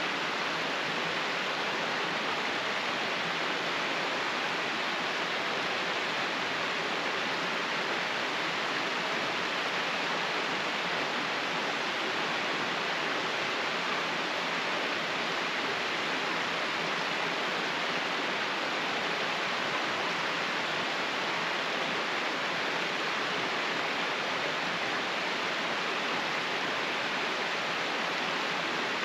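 Mountain creek tumbling over small rock cascades: a steady, even rush of running water.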